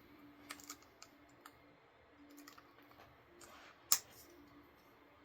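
A few sharp plastic clicks as parts are snapped onto a Tpob XO hair clipper, the loudest about four seconds in.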